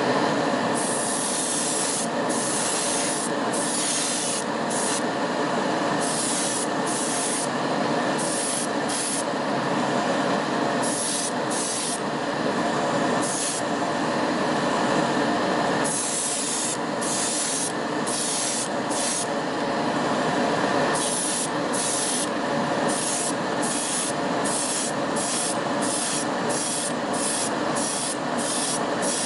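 Spray paint hissing out in short bursts onto a small diecast car body. The bursts come shorter and quicker near the end, over a steady fan-like hum.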